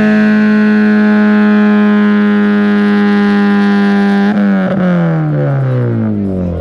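Vehicle engine held at steady high revs in a burnout. About four seconds in it is let off and the revs fall away steadily.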